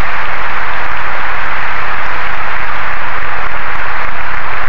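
Steady, loud hiss of a noisy old recording, even and unchanging, with no speech.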